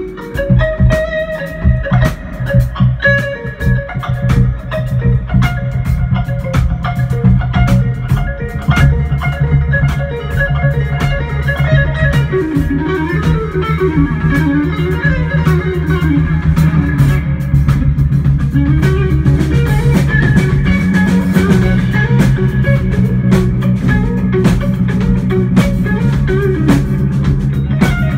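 Live instrumental band playing loud: electric guitar lines over a multi-string electric bass and a drum kit. About nine seconds in, the band settles into a fuller, steadier groove.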